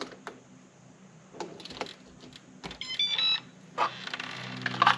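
Batteries clicking into the battery holder of a Reliabilt keyless deadbolt. About three seconds in, the lock powers up with a short series of electronic beeps, then its small motor runs for about a second.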